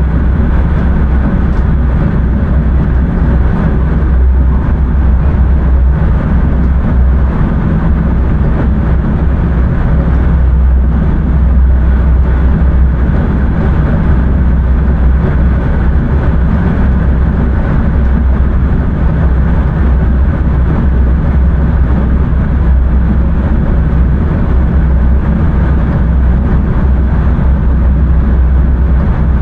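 Passenger train running along the line, heard from inside the driver's cab: a steady, loud rumble of the train and its wheels on the track that does not change.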